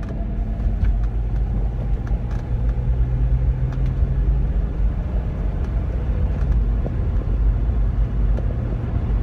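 Jeep accelerating from a stop, heard from inside the cabin: the engine pulls over a steady low road rumble, and its note shifts about four and a half seconds in. No distinct tyre hum stands out from the Kumho Road Venture AT51 all-terrain tyres, which the driver says he cannot hear at all.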